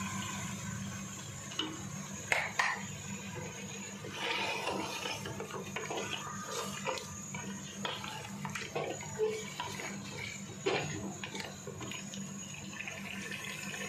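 Mutton frying in cooking oil in an aluminium pressure-cooker pot, a steady sizzle as it is stirred with a wooden spoon, with occasional knocks of the spoon against the pot. The water has cooked off and the meat is at the bhuna stage, frying in the added oil.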